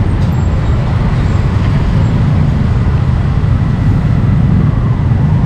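Steady, loud low rumble of street background noise, like traffic, with no clear single event.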